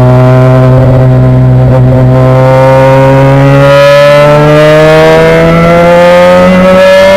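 Race car engine heard from onboard in the cockpit, very loud, pulling through a single gear with its pitch rising slowly and steadily. A hiss builds under it from about halfway.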